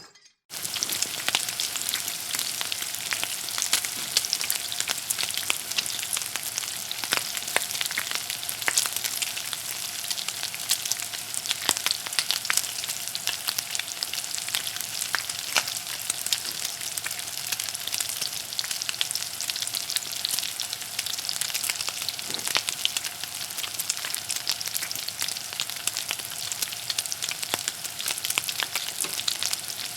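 Hot cooking oil sizzling steadily with many small crackles and pops, starting about half a second in.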